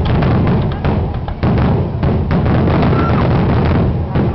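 Fireworks finale barrage: many shells bursting in quick, overlapping succession, a dense run of booms and bangs over a heavy low rumble.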